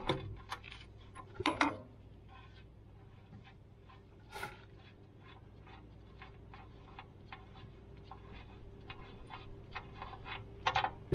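Socket ratchet clicking and metal tool knocks as the 1 1/8-inch oil drain plug on a tractor's oil pan is worked loose. This is followed by faint, regular ticking, about two or three ticks a second, and a short clatter near the end.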